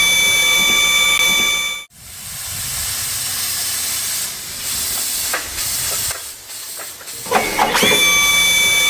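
A steam locomotive whistle blows a chord of several tones, rising briefly in pitch as it starts and cutting off suddenly about two seconds in. A steady hiss of steam follows for about five seconds, and the whistle sounds again near the end.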